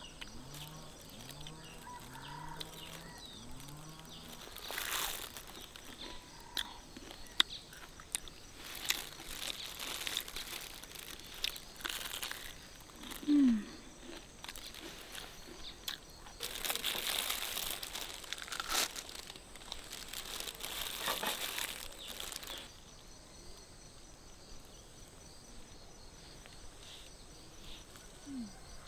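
Rustling and crinkling handling noises, in irregular stretches, with a short falling squeak about halfway through.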